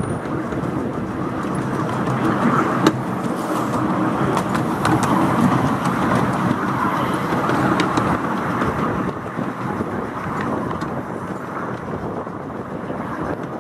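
Steady running rumble of a 10¼ inch gauge miniature railway train's coaches rolling along the track, heard from on board the rear coach, with a few sharp clicks.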